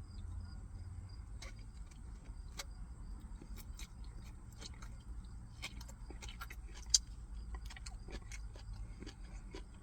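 Utensil clicking and scraping against a takeout food container: scattered light clicks, with one sharper click about seven seconds in, over a low steady hum.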